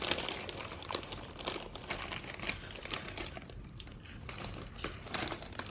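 Snack bag crinkling in irregular bursts as it is handled, with scattered crunchy clicks.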